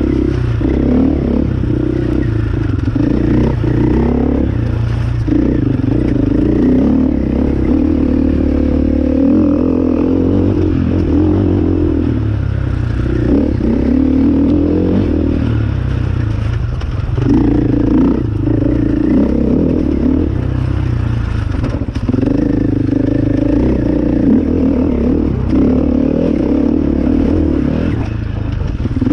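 Enduro dirt bike engine running under load, revving up and easing off every few seconds as the throttle is worked, with clatter and scraping from the bike over rough ground.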